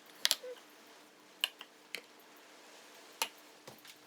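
About six short, sharp clicks and taps at irregular intervals, made by kitchen utensils knocking against a bowl as mug-cake ingredients go in. There is a double click near the start.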